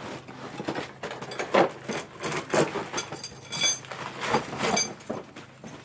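Steel trap chain clinking and paper and cardboard rustling as a chained steel trap is pulled out of its packaging, with irregular knocks and a few sharp ringing clinks, the loudest about three and a half and four and a half seconds in.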